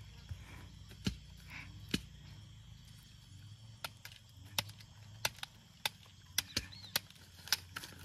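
Sharp cracks and knocks of cassava being cut and handled in the field, irregular, one or two a second and coming faster in the second half.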